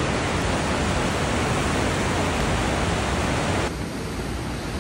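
Snoqualmie Falls' water rushing down in a steady, loud, even roar of noise, dropping somewhat in level about three and a half seconds in.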